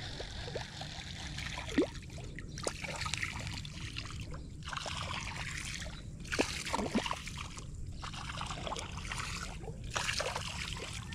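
Topwater lure being reeled across calm water, churning and splashing the surface in runs broken by several short pauses.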